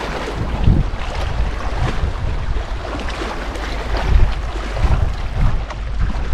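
Wind buffeting the microphone in gusts: an uneven low rumble with a hiss above it.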